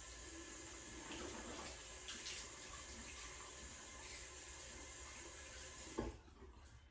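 Water running from a tap into a sink with small irregular splashes, then a sharp knock about six seconds in, after which the running water stops.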